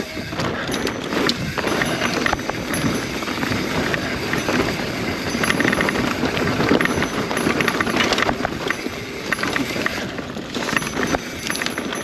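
Mountain bike riding down a rough, rocky trail: the tyres rumble over the ground and the bike rattles, with many quick clicks and knocks over a dense, steady noise.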